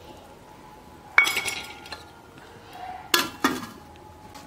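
Steel kitchen utensils clinking: one sharp ringing clink about a second in, then two quicker clanks near three seconds in as a steel plate is set as a lid on a clay cooking pot.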